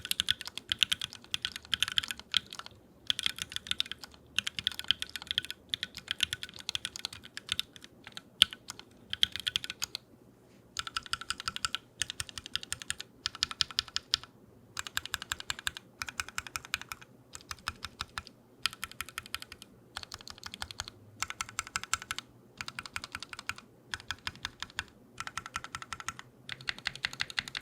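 Fast typing on a custom mechanical keyboard, a Tengu prototype with unlubed UHMWPE-stem Tealios V2 linear switches and GMK Minimal keycaps: rapid keystroke clacks in bursts of a second or two with short pauses between them.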